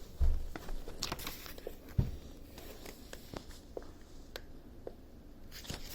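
Scattered light clicks and a couple of soft low knocks: hands handling a small plastic weather radio and pressing its buttons.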